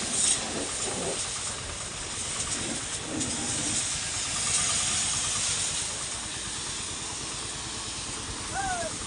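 High-pressure washer jet spraying water onto a truck's chassis and tyres, a steady hiss of spray.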